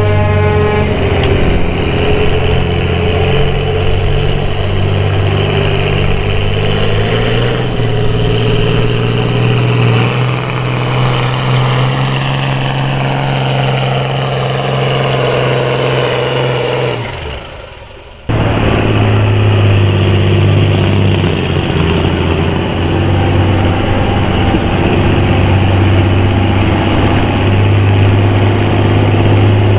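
Farm tractor's diesel engine running hard at high revs under load, loud and fairly steady. About two-thirds of the way through it fades away, then cuts back in at full power.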